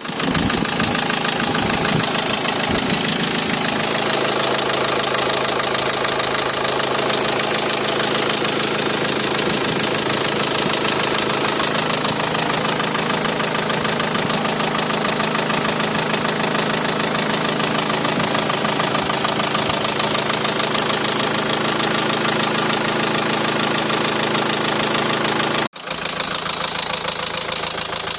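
Nissan NP200's 1.5 dCi K9K four-cylinder diesel engine running steadily with a rhythmic knock, a knock whose cause the owner cannot place. The sound cuts out for a moment near the end, then carries on.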